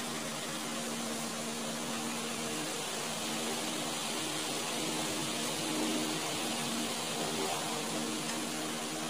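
Steady machine hum with a hiss, like a running fan.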